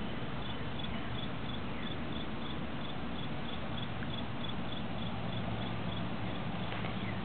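Crickets chirping steadily, about two chirps a second, over a steady hiss and low rumble.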